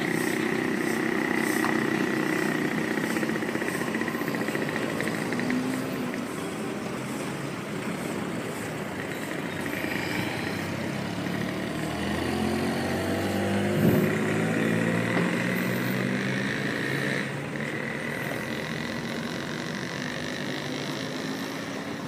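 A steady mechanical rumble with a faint high whine. From about twelve seconds in, an engine rises in pitch as it speeds up, with a single knock at its loudest.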